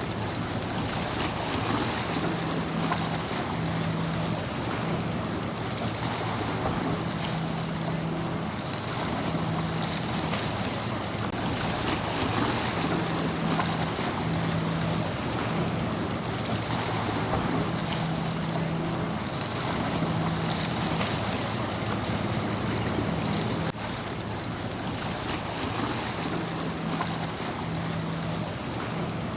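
Ocean waves and surf washing, with gusts of wind on the microphone, and the low drone of a boat engine that keeps cutting in and out.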